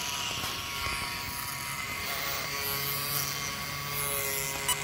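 Small electric cooling fans on an RC car's speed controller and motor running with a steady buzz and thin whine; a faint low hum joins a little past halfway.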